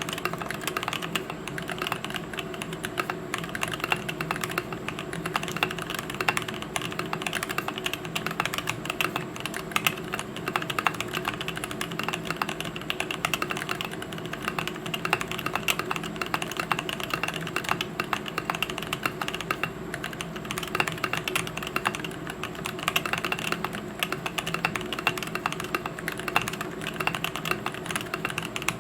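Continuous fast typing on a custom mechanical keyboard with lubed Gazzew Boba U4T tactile switches on a brass plate, aluminium case and PBT keycaps: a dense, steady stream of keystroke clacks.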